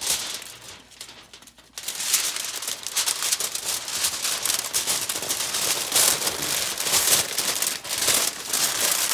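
Doubled aluminium foil crinkling and crackling as it is folded up and crimped by hand into a wrap. Quieter for the first couple of seconds, then a steady run of fine crackles.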